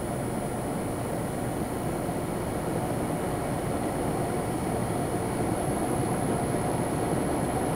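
Low, dense rumbling drone that swells slowly, with a thin steady high whine above it: a dark ambient horror soundtrack bed.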